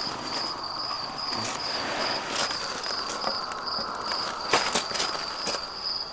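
Crickets chirping in a steady, fast-pulsing high trill. Over it, rustling and sharp clicks and knocks from close handling, the loudest about four and a half seconds in.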